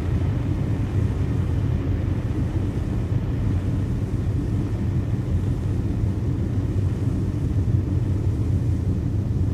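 Steady low rumble of a rocket launch just after liftoff, from a sampled space-launch recording.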